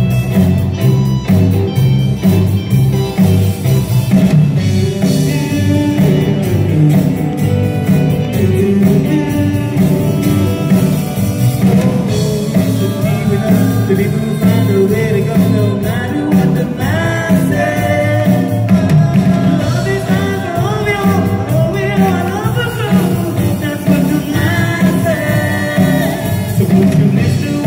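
Live rock band playing: electric guitar over bass notes and drums, with a man's lead vocal coming in about halfway through.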